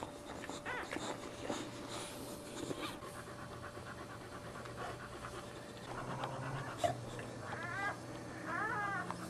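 Boxer mother dog licking her newborn puppies, with short wet clicks of the tongue, then near the end a newborn puppy crying in high squeaks that rise and fall, twice.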